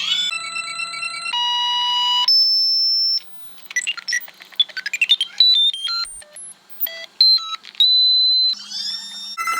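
Sped-up synthesized emergency alert tones: a chain of electronic beeps held at changing pitches, a quick run of short rising chirps about halfway through, and rising sweeps near the end.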